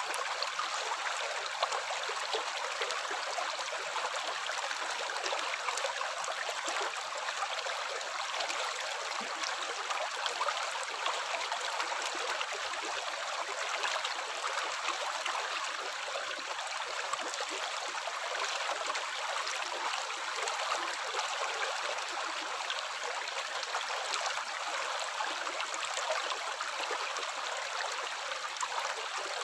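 Water running steadily: an even splashing rush, with small drips and splashes flecked through it.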